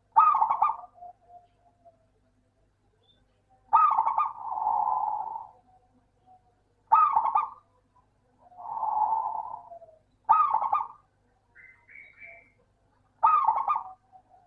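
Zebra dove (perkutut) cooing: a short, sharp call phrase repeated about every three seconds, some phrases trailing into a softer, longer coo.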